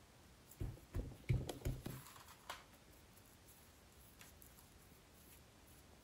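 Hands pressing and patting a ball of oiled yeast dough on an oilcloth-covered table: about five soft, dull thuds in the first couple of seconds.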